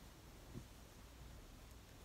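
Near silence: room tone, with one faint, brief handling sound about half a second in as a cotton shirt is handled.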